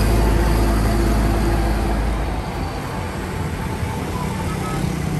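Bulk tanker semi-truck's diesel engine rumbling as it drives past, loudest in the first second or two and then fading, over the steady noise of road traffic and motorbikes.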